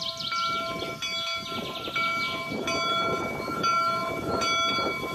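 Union Pacific No. 119, a 4-4-0 steam locomotive, moving slowly with its bell ringing: a fresh strike about every three-quarters of a second, the ring held between strikes.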